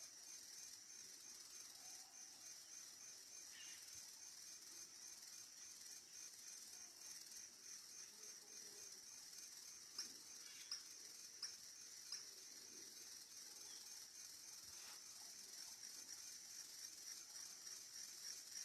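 Near silence over a steady, high, pulsing chirr of insects, with a few faint clicks about ten to twelve seconds in.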